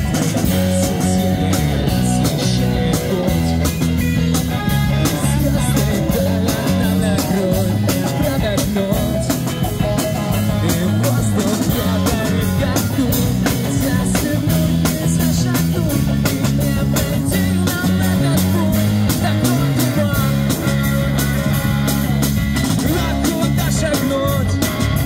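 A live street rock band playing through a small amplifier and speaker: a drum kit, electric guitars and a singing voice, in a steady rock groove.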